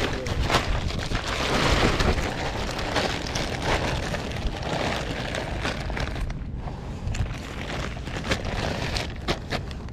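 Thin plastic shopping bag crinkling and rustling as hands fold and handle it. The rustling is dense for the first several seconds, then thins to scattered sharp crackles, over a low wind rumble on the microphone.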